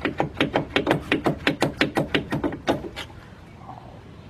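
Rapid metal-on-metal knocking, about six sharp ringing knocks a second, as a stuck brake caliper is worked loose; it stops about three seconds in.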